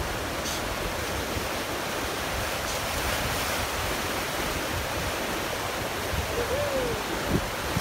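River rapids rushing steadily around a boat running whitewater: an even roar of moving water.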